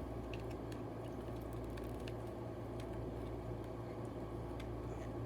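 Faint, scattered light clicks and taps, like small objects being handled, over a steady low electrical hum.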